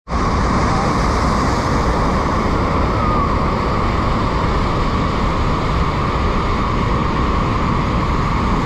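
Loud, steady roar of the Bridal Veil Falls at Niagara, close to the falling water.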